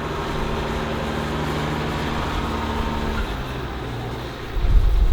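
Diesel engine of a JCB Loadall telehandler running steadily; its note drops to a lower pitch a little past three seconds in. Low rumbling gusts of wind on the microphone come in near the end.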